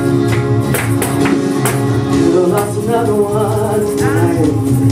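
Live gospel praise music: a held keyboard chord over a steady percussion beat of about two strikes a second, with a woman's voice singing into a microphone over it in the second half.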